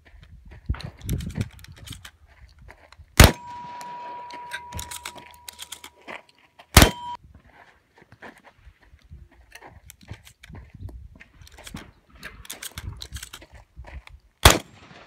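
Three 12-gauge shotgun shots from a Stoeger M3000 semi-automatic: one about three seconds in, one near halfway and one near the end. After the first shot a steel target rings with one steady tone for several seconds. Between shots come quick clicks and clatter of shells being loaded into the magazine tube.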